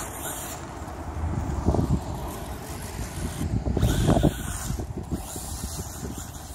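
Brushless-motor WLtoys A959 RC buggy running on loose dirt as it drives away, heard under an irregular low rumble on the microphone that surges about two seconds and four seconds in.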